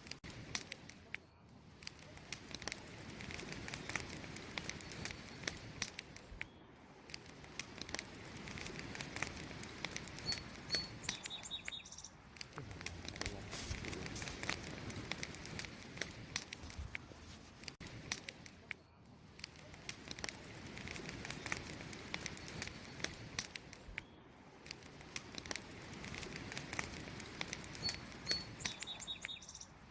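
Wood fire crackling: a steady hiss of burning wood with many sharp pops and snaps. A faint short high chirp sounds twice, just before the middle and near the end.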